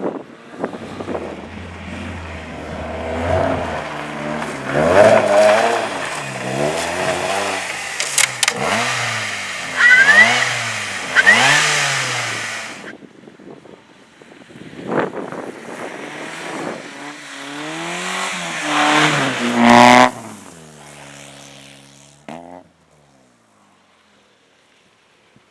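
Car engine revving hard, its pitch climbing and dropping again and again as the car accelerates and lifts off, with a couple of sharp pops about eight seconds in and short squeals soon after. The sound peaks once more and then fades to near quiet near the end.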